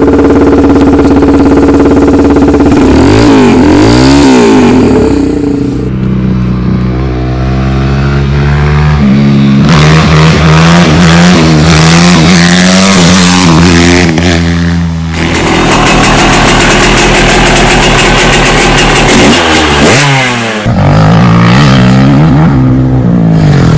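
Dirt bike engines revving and running in a string of short clips, the pitch rising and falling with the throttle. The sound changes abruptly from one bike to the next every few seconds.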